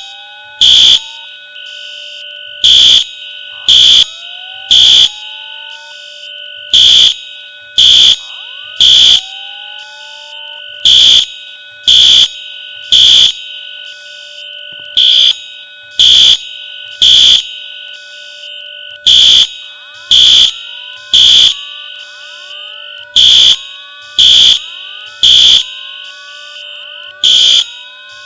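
Fire alarm sounding in the temporal-three evacuation pattern: three loud, high-pitched beeps about a second apart, then a short pause, repeating throughout, with a fainter steady tone carrying on between the beeps.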